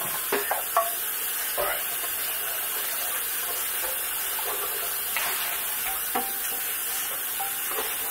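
Hot wok sizzling steadily, with scattered clinks and scrapes of metal against the wok, several in the first second and a few more later.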